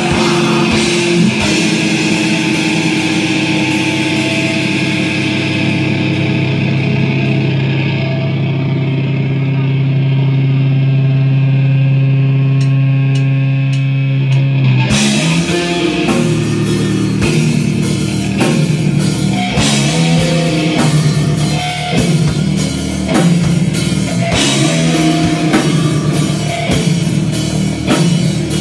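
Live metal band: distorted electric guitar, bass and drum kit. After a couple of seconds the drums drop out and low held guitar and bass notes ring on, with a few light ticks, then the full band comes back in about halfway through.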